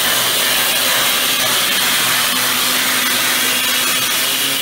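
Handheld grinder cutting through a storage unit's padlock, metal on metal: a loud, steady high whine over grinding noise.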